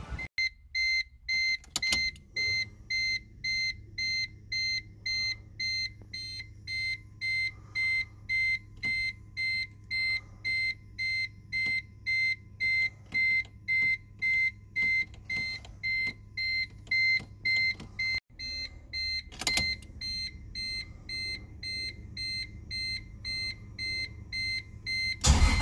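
Car's electronic warning beeper sounding with the ignition key on, a high beep repeating evenly about twice a second, over a low steady hum.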